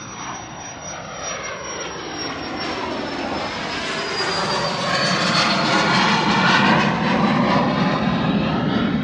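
A jet aircraft passing by. Its engine noise swells steadily to its loudest about six to seven seconds in, with a high turbine whine that slides slowly down in pitch as it goes.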